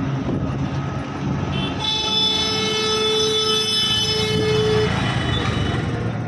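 Road traffic noise with one long, steady vehicle horn blast starting about two seconds in and lasting some three and a half seconds.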